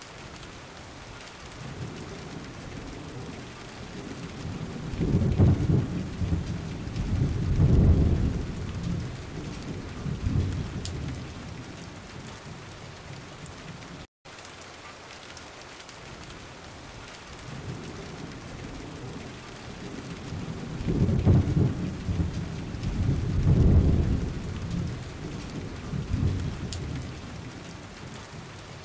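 Steady rain with rolling thunder, a looped ambience track: two low rumbles swell up a few seconds in, and after a brief dropout halfway through the same rain and two rumbles repeat.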